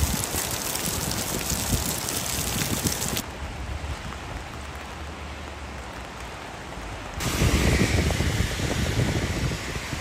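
Rain hissing steadily onto flooded river water. About three seconds in it cuts to the duller, quieter rush of the swollen, muddy river flowing. Near the end it cuts again, to gusts of wind buffeting the microphone over churning floodwater.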